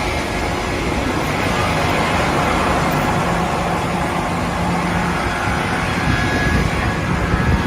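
Multi-blade circular rip saw for logs running: a loud, steady machine noise over a low hum.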